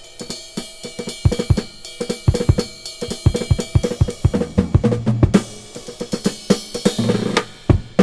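Music with a busy drum kit (snare, kick drum and cymbals in a quick steady beat) over sustained instrument tones, played back from a vinyl record through a phono preamp.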